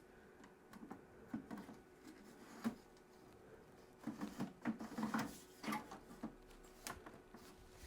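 Light knocks and clicks of computer hardware being handled and moved on a bench, a few scattered at first, then a quick cluster in the middle, over a faint steady hum.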